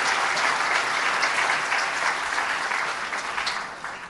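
Seated audience applauding, a dense patter of many hands clapping that dies away near the end.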